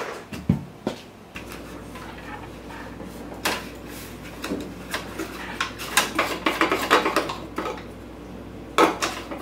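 Irregular metallic clinks, clicks and knocks from hands working at a snowblower's engine controls, with a faint steady low hum underneath.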